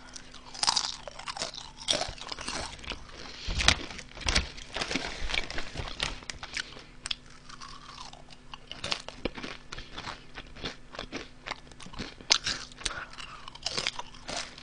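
Close-up crunching and chewing of Honey Butter Chip potato chips: many sharp, irregular crunches as the chips are bitten and chewed.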